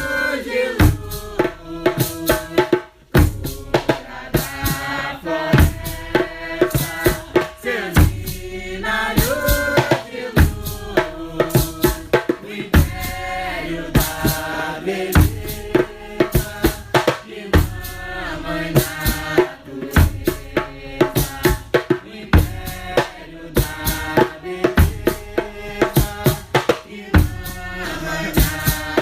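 Nyahbinghi chant: voices singing a traditional Rastafari chant over hand drums, with a steady heavy drum stroke about once a second and quicker drum beats between.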